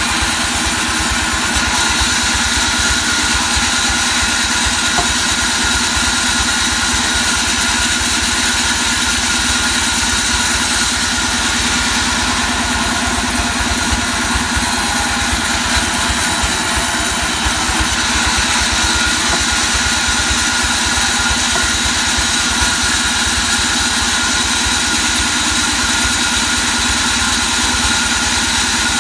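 Sawmill band saw running steadily as it rips a mahogany plank lengthwise: a loud, constant machine drone with a steady whine that holds unchanged.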